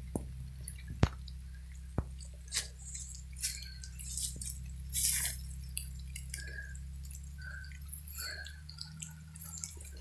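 Scattered small clicks and rustles of a phone being handled and carried while walking, over a low steady hum.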